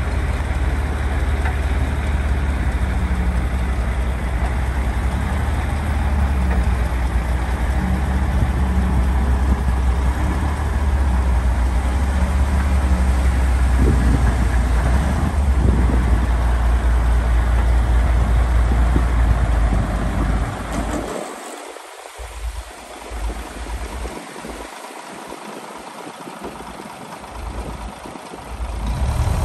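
Heavy diesel earthmoving machinery running with a deep, steady low rumble; about twenty seconds in the rumble drops away and the engine sound turns quieter for the rest.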